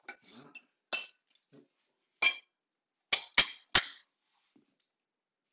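A hammer striking metal in sharp, ringing clinks: one about a second in, another just after two seconds, then three quick blows close together a little past three seconds.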